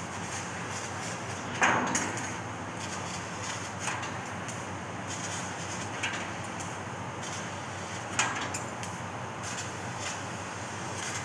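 Laser cutting machine cutting a steel sheet: a steady hiss broken by four sudden sharp pops about two seconds apart, the loudest about a second and a half in.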